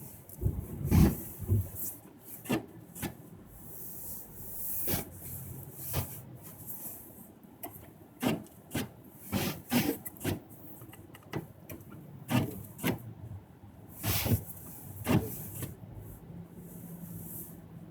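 A series of short rubbing and scraping strokes at uneven intervals, over a faint steady hiss.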